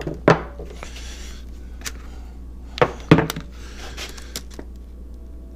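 Scattered light clicks and taps of small metal and rubber brake master cylinder parts and tools being handled, a few sharp ones about a second apart with a quick pair past the middle, over a steady low hum.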